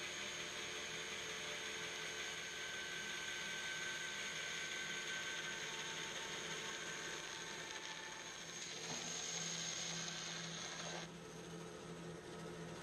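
Grizzly G0513 bandsaw with a carbide resaw blade cutting through a hickory board on edge, a steady cutting noise over the running saw. The sound changes near the end of the cut and drops about 11 s in as the blade comes through the board and the saw runs on free.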